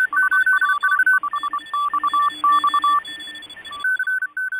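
Electronic beeping sound effect: rapid tones switching between two pitches over a hiss. The hiss cuts off shortly before the end, leaving a few longer beeps at the higher pitch.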